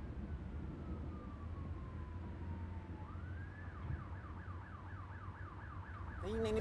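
An emergency-vehicle siren heard from inside a moving car, over the steady low drone of the car. It starts with one long tone that slowly falls in pitch. About three seconds in it switches to a fast up-and-down yelp of about three sweeps a second.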